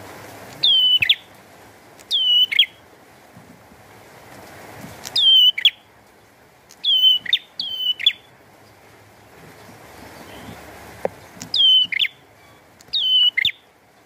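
Caged prenjak singing loud, sharp repeated calls, about seven in all, each sliding down in pitch and ending in a quick downward flick, some in close pairs, over a steady hiss of rain.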